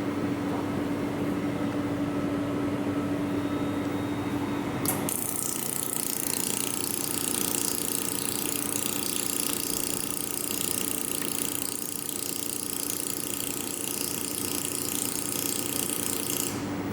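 Mould laser welding machine with a steady hum; about five seconds in, a strong hiss with rapid ticking starts and runs until just before the end, as the foot switch is held and the laser fires.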